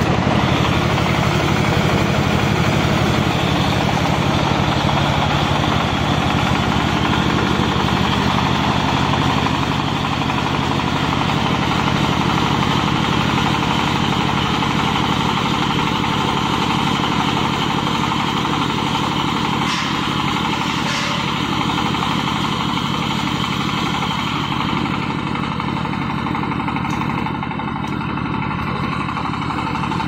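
Silage round baler and wrapper machine running steadily, a loud continuous mechanical drone, with two faint clicks about two-thirds of the way through.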